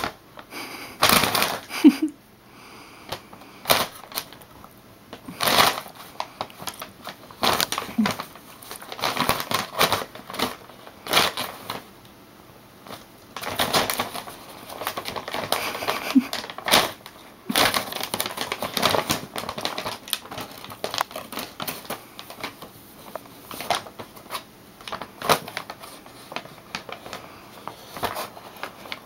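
A brown paper shopping bag rustling and crackling in irregular bursts as a round bristle hairbrush is scraped and poked against its side.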